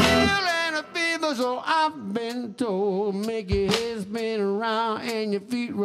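Live electric blues in a break: the drums and bass drop out just after the start, leaving a single line of long, wavering notes with vibrato.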